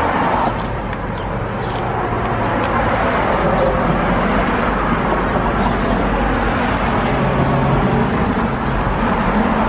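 Street traffic: a steady wash of passing vehicles, with a heavier engine hum swelling twice, around two seconds in and again near the end.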